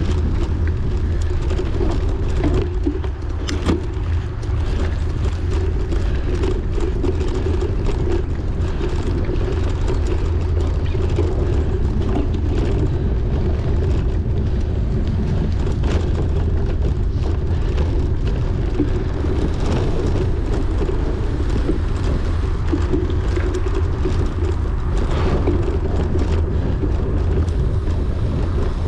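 Wind buffeting the microphone while a cyclocross bike is raced over rough ground: a steady low rumble with frequent knocks and rattles from the bike.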